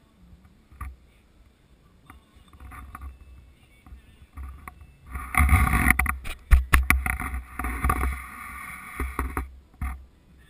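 Close-up rustling and handling noise with several sharp knocks, loud for about four seconds from about five seconds in, after a few faint rustles.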